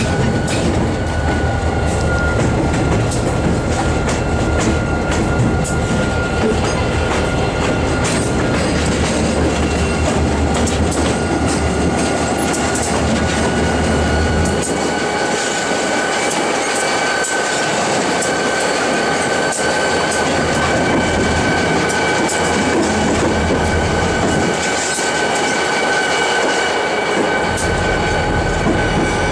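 Diesel locomotive heard from inside the cab while rolling: engine rumble, wheels clicking over rail joints, and a steady high wheel squeal. The low engine rumble falls away about halfway through and returns near the end.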